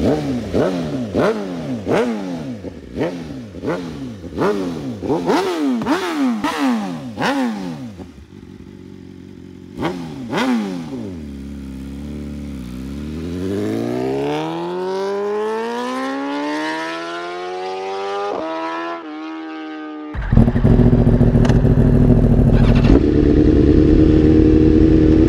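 2023 BMW M1000RR's inline-four through an Akrapovic titanium header and SC Project slip-on exhaust, revved in quick blips about twice a second with sharp cracks at several peaks. After a lull it pulls in one long rise in pitch with a couple of brief breaks. About twenty seconds in, a sudden loud steady rush comes in over the engine, which keeps rising slowly.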